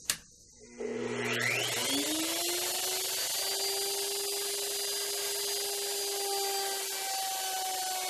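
A sharp click, then an electric router starts about a second in: its motor winds up in a rising whine and runs at steady speed, cutting as it is swung in an arc across a wooden block to rout a 14-inch radius into it.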